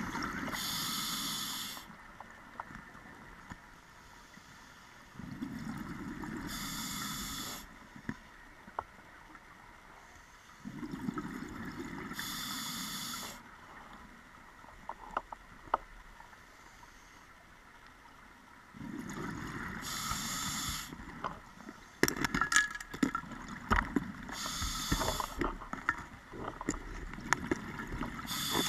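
Scuba diver breathing through a regulator underwater: about every six seconds a breath cycle of hiss and rumbling exhaled bubbles lasting about two seconds, with quieter gaps between. Scattered clicks and knocks, coming thick and fast in the last several seconds.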